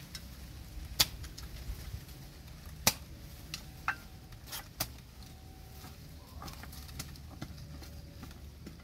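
A metal hoe blade chopping and scraping into soft soil while digging a hole: a few sharp strikes spaced one to two seconds apart, with smaller scrapes between.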